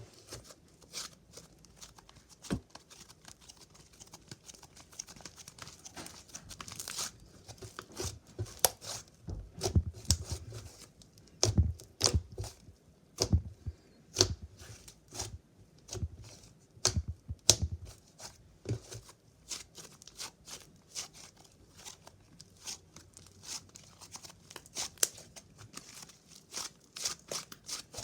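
Slime being squished and stretched by hand, giving an irregular run of sticky pops, clicks and crackles with occasional soft low thumps.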